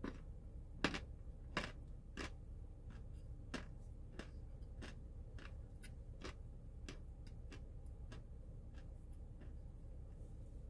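Crunchy food being chewed close to the microphone: a run of sharp crunches about every half second to second. They are loudest in the first couple of seconds and fade to faint ones after about seven seconds.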